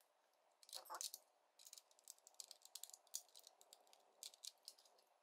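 Faint, irregular clicks and rattles of Mega Construx plastic bricks being handled and pressed together.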